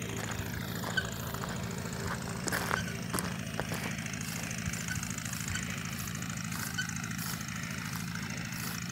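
Tractor engine running at a steady pace as it tows a lawn roller.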